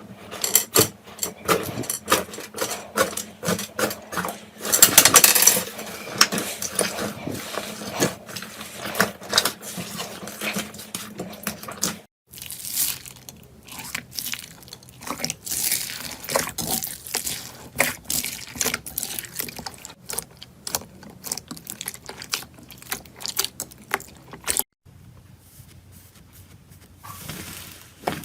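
Slime being squished, poked and stretched by hand: a dense run of wet clicks, pops and crackles. The sound breaks off sharply twice, about 12 and 25 seconds in, as one clip gives way to the next.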